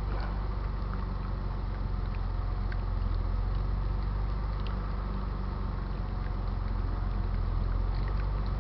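Car engine idling steadily, keeping the battery charged under an electrical load of about 15 amps, with a few faint ticks over it.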